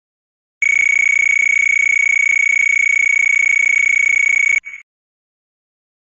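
A steady, high-pitched electronic beep tone held unchanged for about four seconds. It cuts off suddenly, followed by a brief short blip.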